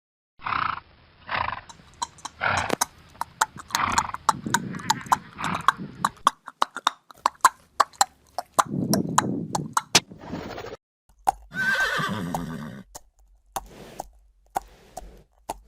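Horse sound effects. For the first six seconds a rhythmic series of breathy blows comes about once a second with hoofbeats among them, followed by a quick run of hoof clip-clops. A whinny sounds about twelve seconds in, and scattered hoofbeats follow.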